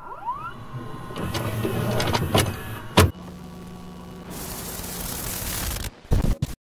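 VHS videocassette recorder loading a tape and starting to play: a motor whirring up in pitch, mechanical clicks and clunks, a steady hum and then a hiss, ending with a few clicks before it cuts off suddenly.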